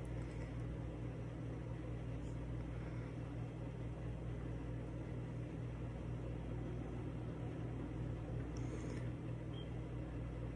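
Steady low hum with a light hiss from a running household appliance motor.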